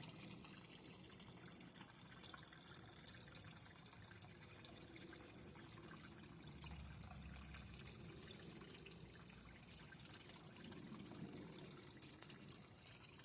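Faint, steady trickle of water from a garden pond waterfall.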